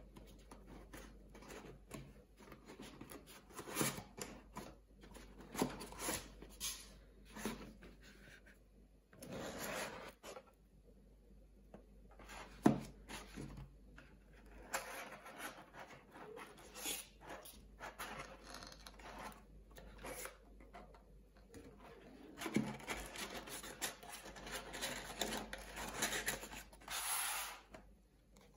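Cardboard watch box being handled and opened by hand: the sleeve sliding off and the lid lifted, with cardboard rubbing and scraping in irregular bursts. A sharp knock about halfway through, and a few lighter taps.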